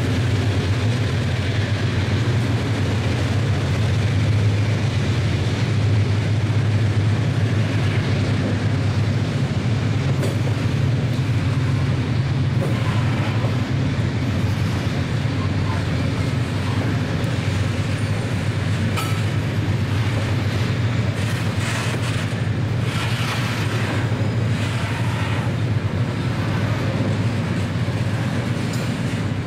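Freight train boxcars rolling past close by: a steady low rumble of wheels on rail, with a scattering of clacks over rail joints that grows more frequent in the second half.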